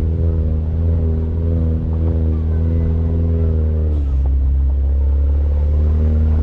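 Mini Cooper Countryman All4's engine running steadily under way with a heavy low rumble; the engine note drops about four seconds in as the revs fall.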